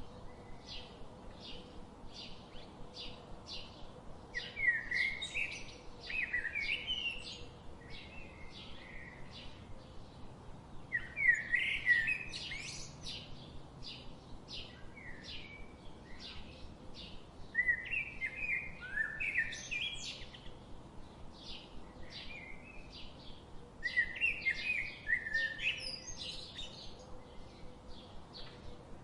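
Birdsong: a steady run of short, repeated chip notes, broken four times by louder phrases of quick warbled, sliding notes, about every six seconds.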